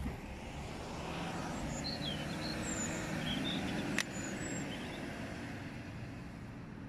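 Forest ambience: a rushing noise that swells and then fades, with small birds chirping high over it now and then and one sharp click about four seconds in.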